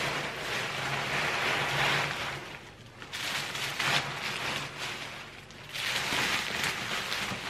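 Shredded paper packing and bubble wrap rustling and crinkling as hands dig through a cardboard box, in three bouts.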